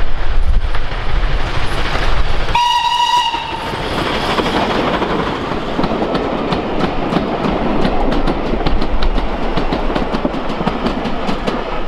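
Steam locomotive and its train of wooden-bodied vintage coaches passing close by, with a short steam whistle sounding for about a second, roughly two and a half seconds in. After it come the steady rumble of the coaches and a rapid, regular clicking of their wheels over the rail joints.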